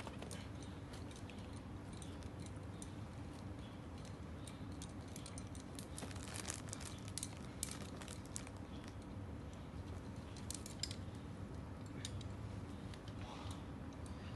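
Climbing gear clicking and rustling: metal carabiners and quickdraws jangling against the harness and rope, in scattered small clicks that come thickest past the middle, over a steady low rumble.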